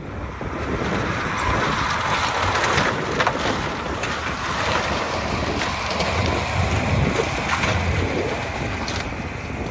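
Tractor running as it drives through a pop-up camper, over a loud rushing noise, with sharp cracks of the camper breaking apart about three seconds in and again near the end.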